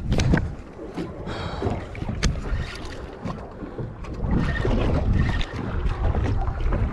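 Wind buffeting the microphone and water against a small open fishing boat, with scattered knocks and clicks.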